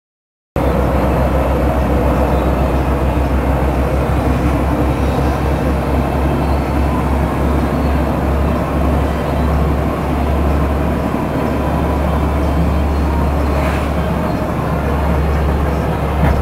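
Heavy truck with a front-mounted snow plough driving on a snowy road, heard from inside the cab: a steady low engine drone under a dense rushing noise. It starts abruptly about half a second in.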